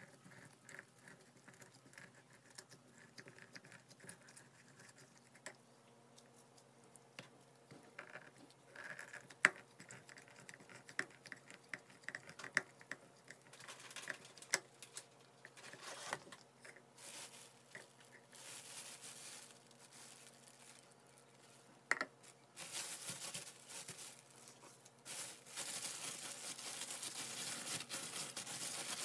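A lemon half being twisted and pressed on a plastic hand citrus juicer, with faint scraping and scratching and a few sharp clicks of the plastic. In the last several seconds a plastic bag rustles and crinkles as raw chicken is handled in it.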